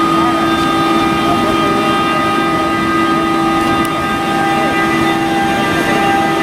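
Bombardier TRAXX class 185 electric locomotive running slowly past at the head of a freight train, its traction equipment giving a steady hum of several held tones over rolling noise.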